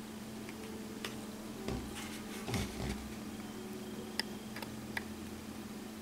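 A few faint, scattered small clicks and taps of tweezers working cotton wicking into a rebuildable atomizer's deck, over a steady low hum.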